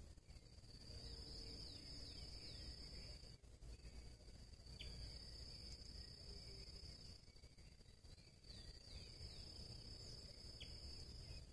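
Faint cricket-like insect trilling: one steady high-pitched buzz that breaks off briefly every few seconds and starts again. A few faint short chirps from birds are mixed in, over a low background rumble.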